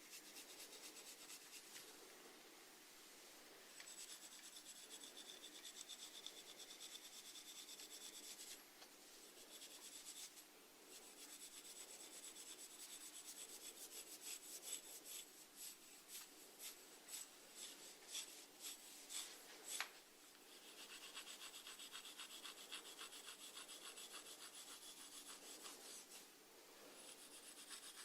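Snails feeding: a faint, fast run of tiny rasping clicks as their radulae scrape at food, in stretches of several seconds broken by short pauses.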